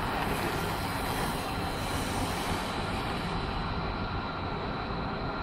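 Knobbly tyres of a pack of BMX bikes rolling on the hard track surface, a steady rushing noise that is strongest in the first three seconds as the riders pass close, then thins as they move away, over a steady low rumble.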